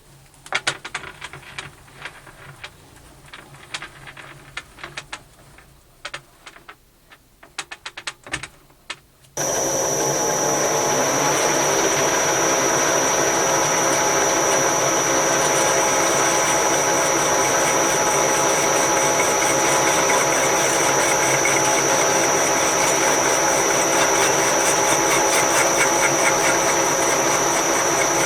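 A few sharp clicks and knocks of metal parts being handled, then about nine seconds in the Progres 380 metal lathe is switched on and runs steadily, with a steady high whine over its drive.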